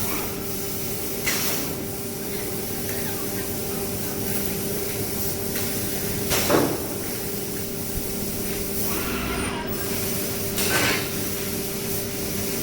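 CNC tube laser cutting machine running: a steady hum with a hiss over it, and a few brief louder swishes as it works.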